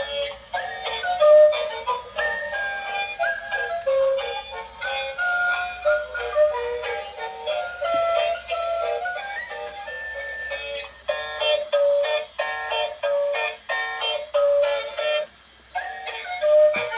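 Electronic dancing toy playing its built-in tune through a small speaker: a tinny, bright melody of short notes with synthetic singing and no bass. It pauses briefly near the end.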